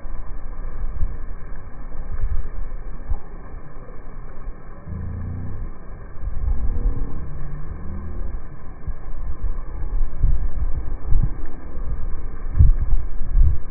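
Wind buffeting the microphone: a gusty low rumble that comes and goes. Around the middle, a brief wavering pitched sound rises and falls over it.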